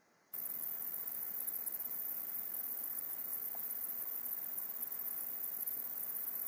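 A steady electronic hiss, strongest in the highest treble, that switches on abruptly just after the start and holds level.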